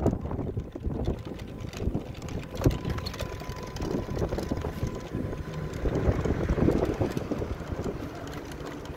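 Wind buffeting the microphone over the low rumble of a moving vehicle.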